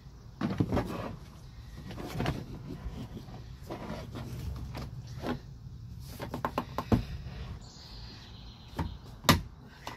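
Black plastic door-sill trim being pressed down and hooked into metal floor clips: irregular plastic knocks, clicks and rattles, with two sharper knocks in the second half.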